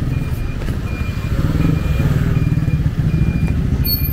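A motor vehicle engine running close by, a low pulsing rumble that grows louder about one and a half seconds in, with short electronic beeps repeating about every three quarters of a second, like a reversing alarm.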